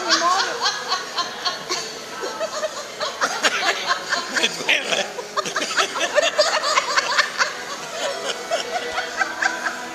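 A man laughing in a long run of short bursts.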